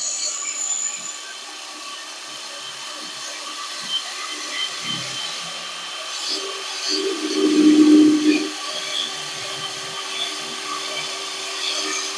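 Cordless brushless DeWalt hammer drill running steadily with a high motor whine, growing louder and deeper for about a second and a half around seven to eight seconds in.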